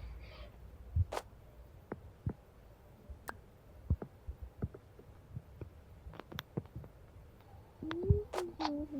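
Scattered light clicks and knocks, with a short pitched voice sound near the end.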